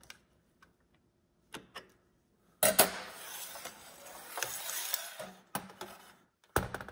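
Metal clicks and rattles from an AR rifle and its underfolder stock being handled on a steel table. About two and a half seconds in, a sudden stretch of scraping, rattling noise lasts nearly three seconds, and sharp clicks follow near the end.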